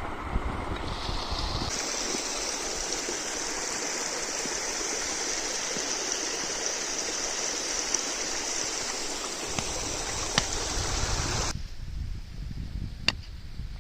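Spring water running steadily with an even rushing hiss. It cuts off suddenly near the end, leaving a low rumble and a few sharp clicks.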